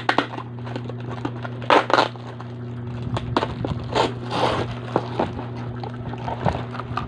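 Cardboard box and plastic bubble wrap being handled and pulled open: crinkling and crackling, with louder rustles about two seconds in and again around four seconds, over a steady low hum.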